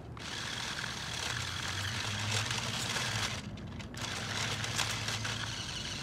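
Small electric motor and plastic gearbox of a JJRC Q69 1:18 six-wheel RC crawler truck running under load as it crawls over roots, with a low steady hum and a hiss that eases briefly about halfway through.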